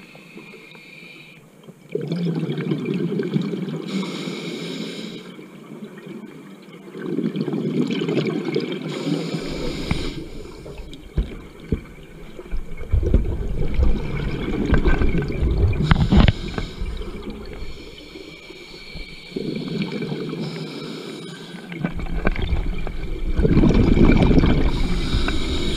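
Scuba diver breathing through a regulator underwater: loud rushes of exhaled bubbles come every five seconds or so, with quieter hissing inhalations between them.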